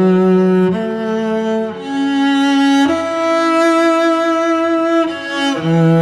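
Solo cello playing a slow melody of long bowed notes, changing note about five times. It is recorded close-up through a Lauten Audio LA-220 FET condenser microphone.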